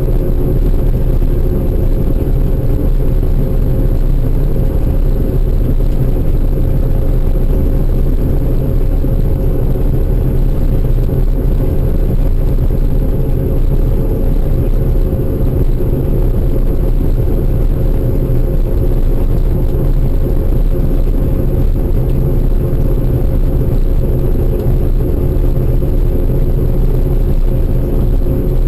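Heavy harvest machinery running steadily: a loud low engine drone with a constant mid-pitched whine over it.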